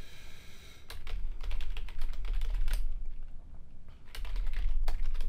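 Typing on a computer keyboard: a run of quick key clicks, a pause of about a second, then another burst of clicks near the end.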